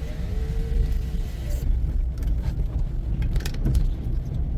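Low rumble of a car's engine and tyres heard from inside the cabin while driving through a snowstorm. A faint whine and a steady hiss stop about a second and a half in, and a few light clicks follow.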